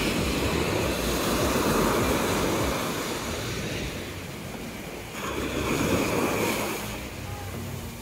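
Small sea waves breaking and washing up a sandy beach, swelling twice: over the first few seconds and again about five seconds in.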